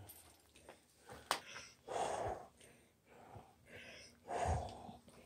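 A person breathing close to the microphone: two faint, audible breaths, one about two seconds in and one near the end, with a single sharp click a little over a second in.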